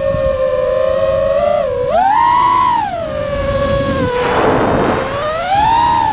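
FPV racing quadcopter's brushless motors and propellers whining, the pitch sweeping up and down as the throttle changes. A rush of noise about four seconds in, as the drone dives.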